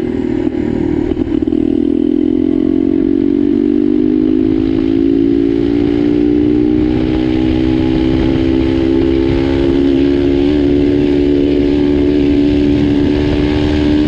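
Turbocharged single-cylinder pit bike engine pulling hard under load while riding, its pitch climbing slowly and steadily.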